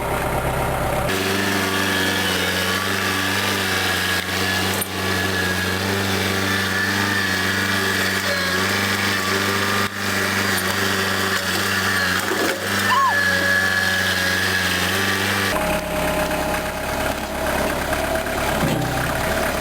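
Tractor engine running steadily, its tone shifting abruptly about a second in and again near the end.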